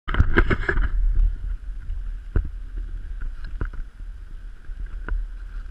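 Dog sled moving along a snowy trail: wind rumbling on the microphone over a steady hiss of the runners on snow, with a burst of clattering in the first second and three sharp knocks as the sled jolts.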